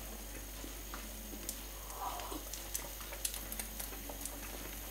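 Egg-and-milk omelette frying in a pan: a quiet, steady sizzle with scattered small pops and crackles.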